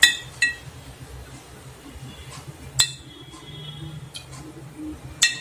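Glass jar of cooking oil clinking as it is handled over the pan: a handful of sharp clinks with a short ring.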